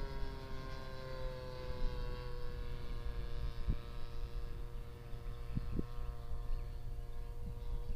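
Engine of a radio-controlled scale model Meta Sokol aircraft heard in flight at a distance, a steady droning tone that eases slightly lower in pitch over the first few seconds, with wind rumble on the microphone.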